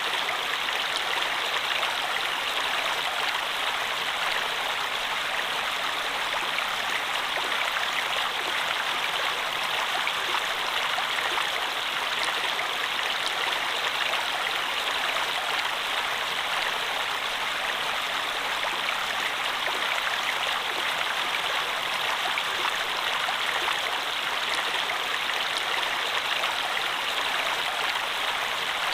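Stream water running and splashing steadily, an even rushing wash with small droplet splashes.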